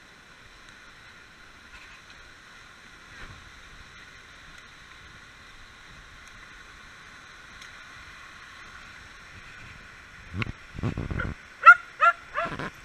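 Steady rush of a small woodland stream, then a few low thuds, and near the end a dog yips four times in quick succession, each yip short and high.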